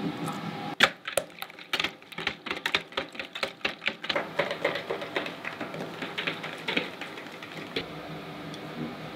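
A rapid run of sharp knocks, about four to five a second, starting with a loud one about a second in. After about four seconds it goes on softer and more irregularly.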